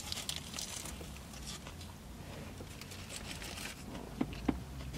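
Soft crinkling of a paper burger wrapper handled while a burger is bitten and chewed, with two small clicks near the end.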